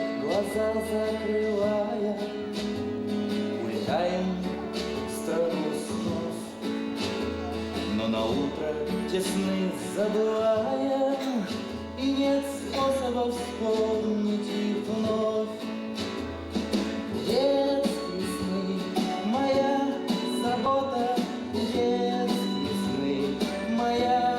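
A song from a stage musical: a voice singing a melody over instrumental accompaniment with a repeating bass line.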